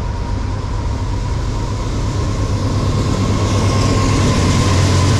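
Diesel freight locomotives running hammered down as the train closes in and the lead unit, a GE C40-9W with a 16-cylinder engine, passes close by: a deep engine rumble growing steadily louder, with a hiss of wheels on rail rising over the last couple of seconds.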